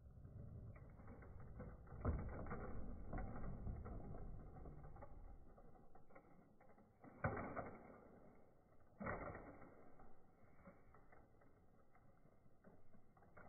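Small toy monster truck rattling as it rolls over concrete and up a plywood ramp, with a sharp knock about two seconds in. It lands hard about seven seconds in and knocks again about nine seconds in.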